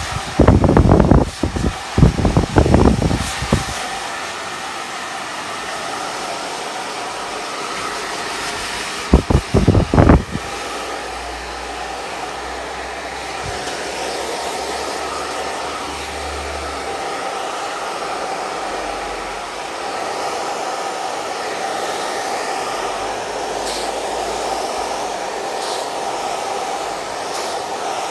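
Handheld hair dryer running steadily, its rush of air carrying a faint steady whine, as hair is blow-dried over a brush. Loud low rumbling buffets come through in the first few seconds and again briefly about nine seconds in.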